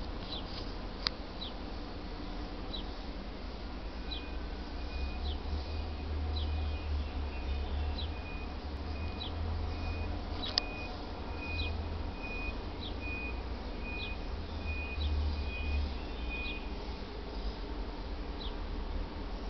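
Countryside ambience with a fluctuating low rumble of wind on the microphone. Short high chirps of birds or insects repeat throughout. From about four seconds in, a run of evenly spaced short high beeps goes on for some thirteen seconds. Two sharp clicks stand out, one near the start and one about halfway.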